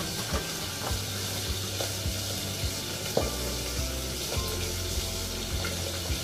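Cooking oil hissing as it heats in a large pot. A steady low hum and faint short ticks about every half second run under it.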